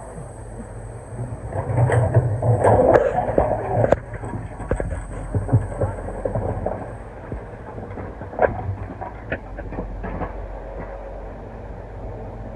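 Excavator engine running steadily while stones crunch, scrape and tumble, loudest for about two seconds near the start, followed by scattered sharp knocks of rock on rock.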